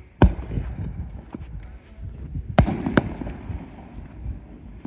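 Aerial firework shells bursting: a loud bang about a quarter of a second in, then two more sharp bangs close together around two and a half to three seconds in, with fainter pops and a low rumble between them.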